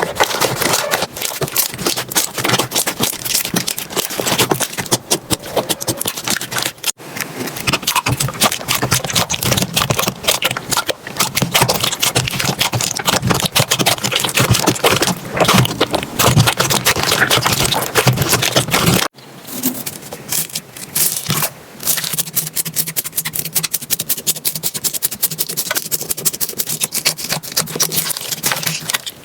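Slime being squished and poked by hand, with dense crackling and popping clicks. The sound cuts off abruptly about 7 seconds in and again about 19 seconds in, each time starting afresh with a different texture.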